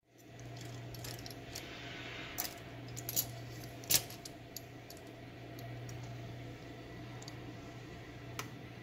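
Clicks and light knocks of a wooden O scale model train car and its Lionel roller-bearing trucks against a granite countertop as it is handled and turned over, a few in quick succession with the loudest about four seconds in. A steady low hum runs underneath.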